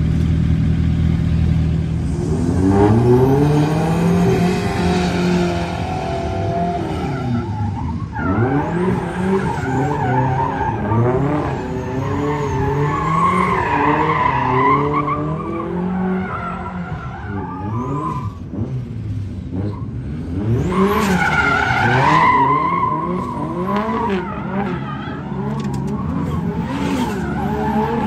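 A drift car's engine holds a steady note, then revs up and down again and again while the tyres squeal in long slides, loudest a little before the middle and again about three quarters of the way through.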